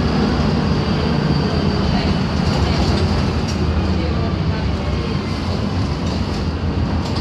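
A LiAZ-5256 city bus on the move, heard from inside the cabin: its YaMZ-236 V6 diesel and the road noise make a steady, loud drone with no gear changes or sudden sounds.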